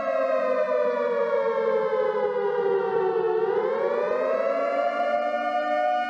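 Outdoor tornado warning siren wailing: its steady high tone slides slowly down for about three seconds, then climbs back up to the high pitch and holds there.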